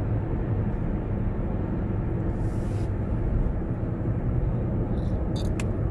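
Steady low rumble of car cabin noise, with a brief breathy sound about two and a half seconds in as the driver yawns, and a few faint clicks near the end.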